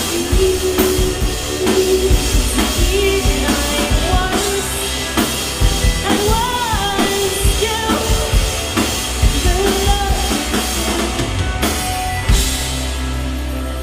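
Live indie rock band playing, with a drum kit beating steadily under a singing voice. About twelve seconds in the drum hits stop and a held chord rings on.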